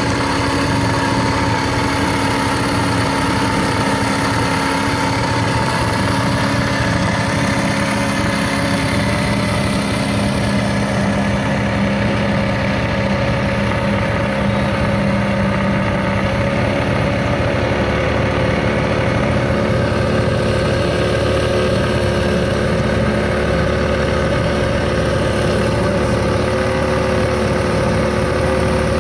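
A boat's motor running steadily as the boat moves along the lake, a continuous engine drone with its pitch shifting slightly now and then.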